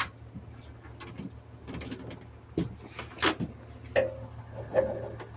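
A few scattered sharp knocks and light clanks, a second or so apart, over a steady low hum.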